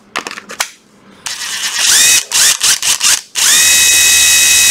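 National EZ7540 brushless cordless impact driver run with no load in a trigger test. A few sharp clicks come first as the battery pack is snapped on. Then several short trigger pulls follow, each a whine that rises quickly in pitch. From about three and a half seconds in it runs at a steady full-speed whine.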